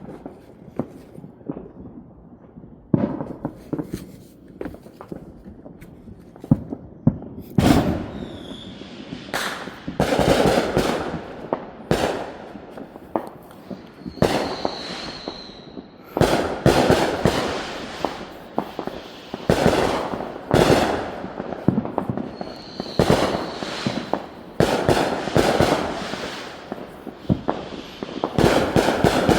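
Fireworks and firecrackers going off all around: scattered pops at first, then about a third of the way in, a dense run of loud cracks and crackling bursts overlapping one another, with a couple of short high whistles among them.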